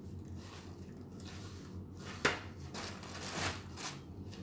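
Small handling noises: a sharp click a little over two seconds in, followed by a second or two of rustling and scraping.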